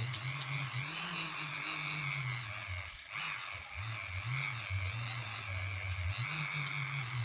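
Dremel rotary tool running with a fine-grit disc on a hook-and-loop sanding pad, sanding a surface. Its motor hum and higher whine waver up and down in pitch, dipping briefly about three seconds in.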